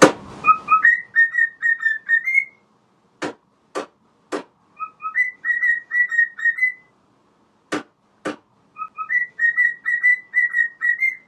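A whistled tune: a short phrase of quick clear notes, two lower ones then a run of higher ones, whistled three times. Between the phrases come sharp taps, three after the first phrase and two after the second.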